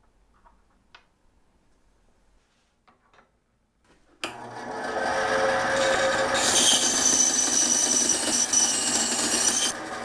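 A vertical metal-cutting bandsaw starts abruptly about four seconds in and cuts through an aluminium block clamped in its vise. A high, hissing cut joins the blade's steady running from about halfway and falls away just before the end as the blade comes through. Before that there are only a few faint clicks of a small metal part on a wooden table.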